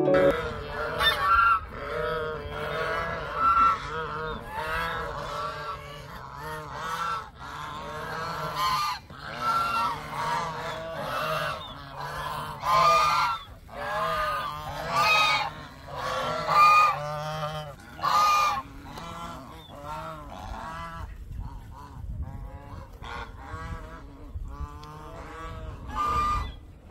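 A flock of geese honking, many short overlapping calls in quick succession, some louder ones standing out every second or two.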